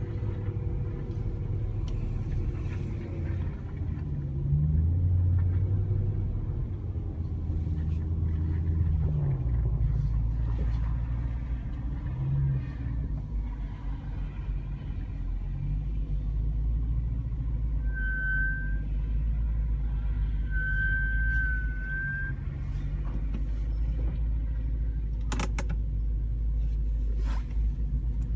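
BMW E92 M3's V8 running at low revs, heard from inside the cabin, with its pitch shifting up and down as the car rolls along. Two short high squeals come about two-thirds of the way through.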